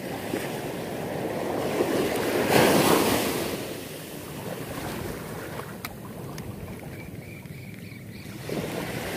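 Small surf washing up a beach: a wave rushes in, loudest about two and a half seconds in, then drains away, and the next one starts to build near the end.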